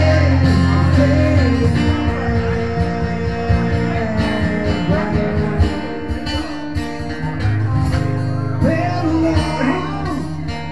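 A live acoustic set: acoustic guitar playing a song, with a singing voice over it.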